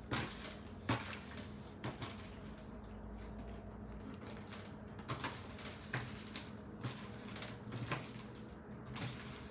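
Dried quinoa pretzels being dropped one at a time into a foil-lined kraft paper pouch: scattered light taps and crinkles of the bag, roughly one a second, over a faint steady hum.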